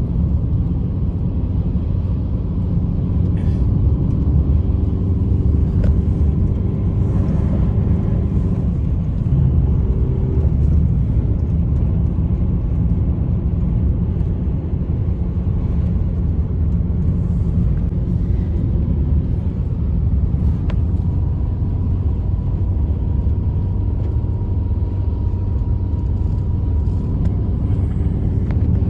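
Steady, loud, deep rumble of strong blizzard wind, with a faint whistle.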